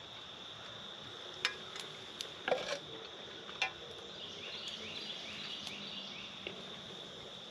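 Steady high-pitched chorus of crickets, with a few sharp clicks and knocks in the first half.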